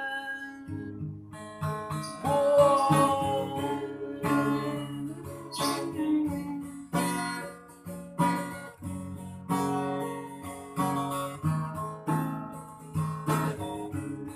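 Acoustic guitar strumming chords in an instrumental break of a song, with no singing.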